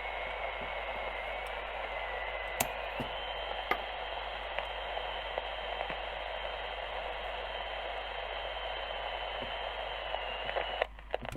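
Philco 53-956 tube radio's speaker giving steady static hiss with a thin whistle tone that steps up in pitch a couple of seconds in, and a few faint clicks. Near the end it cuts off abruptly as the 12AT7 tube is pulled, which kills the signal path.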